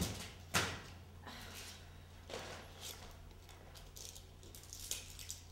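Quiet room tone with a steady low hum, broken by a sharp click about half a second in and a few fainter clicks and light handling noises later on.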